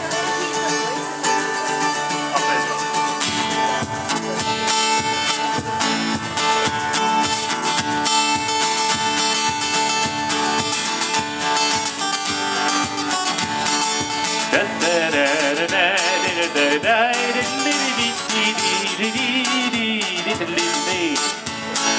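Acoustic guitar strummed in a steady rhythm during a band's sound check. A wavering melody line joins over it about two-thirds of the way through.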